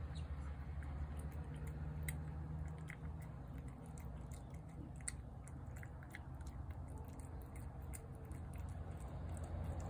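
A cat eating wet pâté cat food from a plate, with irregular wet chewing clicks and smacks over a steady low hum.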